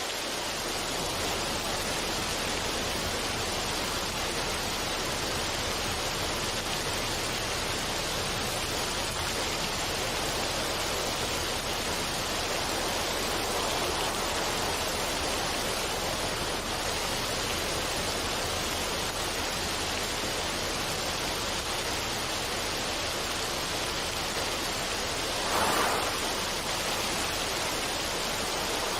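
Steady rush of water, an even hiss that holds level, with a brief swell in loudness near the end.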